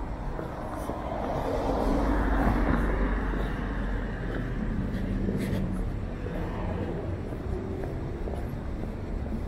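A car passing on the street, its tyre and engine noise swelling to a peak about two seconds in and then fading, over a steady low rumble of city traffic.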